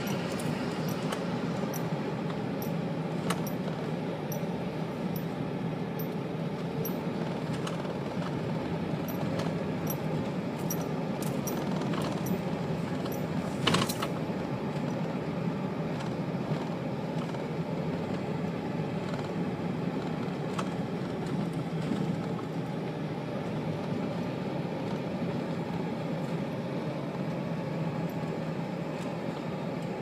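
A car driving slowly on a dirt road, heard from inside the cabin: a steady low rumble of engine and tyres, with scattered light clicks and rattles and one sharper click about fourteen seconds in.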